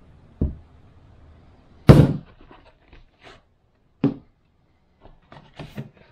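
Handling noise of a USB microphone being unboxed: a few sharp knocks as the microphone is lifted from its foam insert and stood on a table, the loudest about two seconds in, then small taps and rustles as the cardboard packaging insert is handled near the end.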